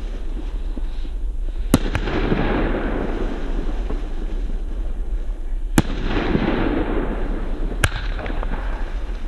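Argento Mephisto category F2 firework battery firing: three sharp bangs a few seconds apart, the first two each followed by a second or so of crackling hiss as the shells break.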